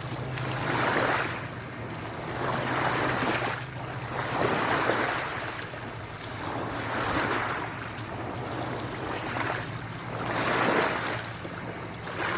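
Sea water washing in repeated surges about every two seconds, each swell rising and falling, over a faint steady low hum.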